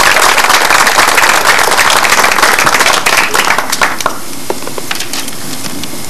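Audience applause for a finished speech, dense at first, thinning to a few scattered claps and dying out about four seconds in.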